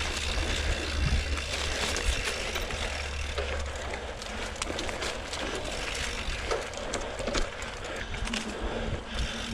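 Mountain bike ridden along dirt singletrack: tyre noise on the trail with frequent clicks and rattles from the bike. A low rumble runs under it for the first three or four seconds.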